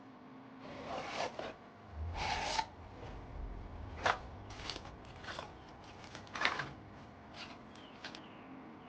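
Things being handled by hand: two rustling, sliding scrapes in the first few seconds, then a string of separate sharp clicks and taps.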